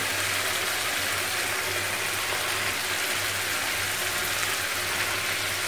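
Tomato-and-khoya masala gravy sizzling steadily in ghee in a nonstick frying pan, a sign that the ghee has separated and the masala is frying in it. A low steady hum runs beneath.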